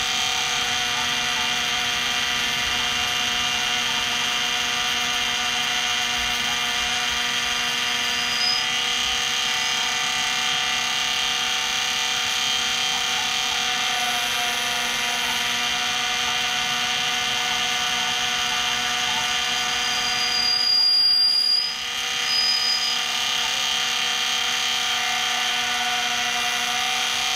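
Benchtop mini lathe running steadily under a cut, its motor and gears making a steady whine of many tones. About twenty seconds in it briefly grows louder, then dips sharply before settling back.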